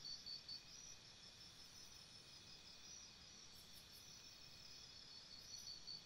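Faint high-pitched insect chirping, a steady pulse of about four chirps a second over a low hiss. It fades out about half a second in and returns near the end.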